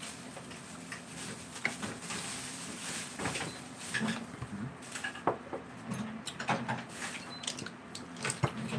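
Scattered light clicks, knocks and clatter of tableware being handled at a table: chopsticks, dishes and a drinking glass.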